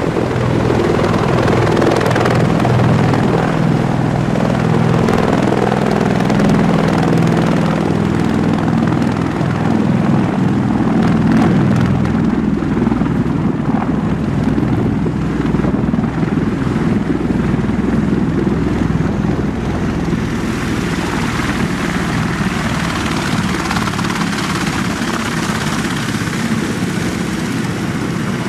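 Bell Boeing MV-22 Osprey tiltrotor hovering low and setting down in helicopter mode, its two proprotors and turboshaft engines running loudly and steadily. About twenty seconds in, the deep rotor beat eases and a higher hiss grows.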